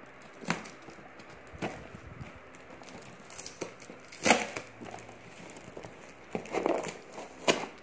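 Cardboard shipping box being opened by hand: packing tape tearing and cardboard flaps and sides rustling and scraping, with scattered sharp knocks, the loudest about four seconds in and near the end.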